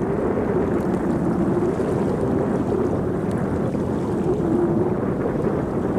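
Wind buffeting the microphone: a steady low rumble, with a faint wavering hum running through it.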